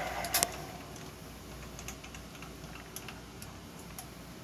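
The Smithy mill-drill's running sound fades away in the first second, with two sharp clicks near the start. Scattered light metallic ticks follow as the machine's controls are handled.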